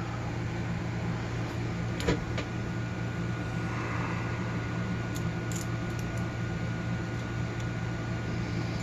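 Steady low room hum with a faint thin whine over it, broken by a few faint clicks from handling the small parts of a disassembled padlock core.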